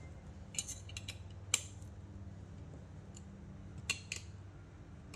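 A metal tool clinking against the build-platform screws of an Anycubic Mono X resin 3D printer as they are being loosened: five or so sharp, separate clinks over a low steady hum.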